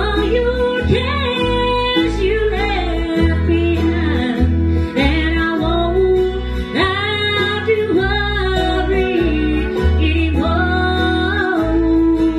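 Country gospel music with strummed acoustic guitar over a bass line that changes chord every second or so, and a gliding melody line on top.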